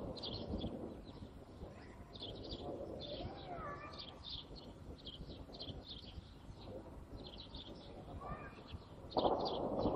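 Small birds chirping in quick, repeated high notes over a low background rumble. About nine seconds in, a louder rumble of distant gunfire sets in.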